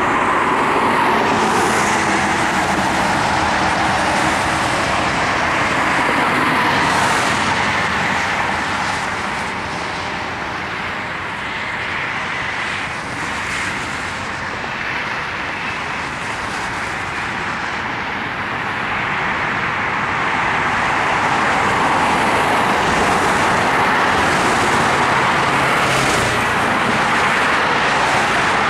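Road traffic noise: a steady rush of tyres and engines from passing vehicles, swelling louder at the start and again for the last few seconds, and easing off in between.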